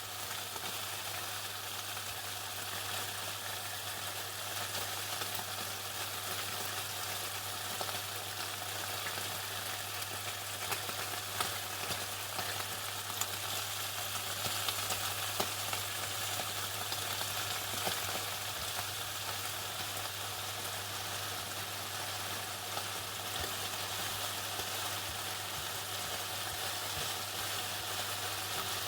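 Chicken frying in hot oil: a steady sizzling crackle with a few louder pops in the middle stretch, over a low steady hum.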